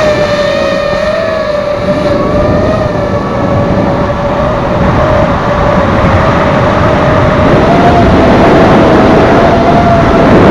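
FPV racing quadcopter's brushless motors and propellers whining at a fairly steady pitch over a loud rush of propeller wash and wind, the pitch wavering slightly with throttle.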